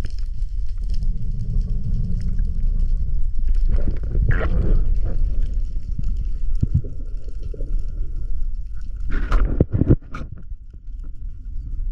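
Underwater noise picked up by an action camera in a spearfishing dive: a steady low rumble, with louder bursts about four seconds in and a few sharp knocks about nine to ten seconds in.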